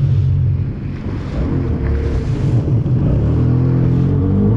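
Jet ski engine running under way with water rushing past the hull. The engine note dips about a second in and climbs again near the end.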